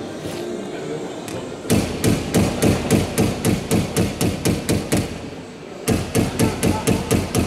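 Rapid hand-hammer blows on a metal aircraft fuselage former, about five a second, in two runs: they start about a second and a half in, break off briefly around five seconds in, then resume.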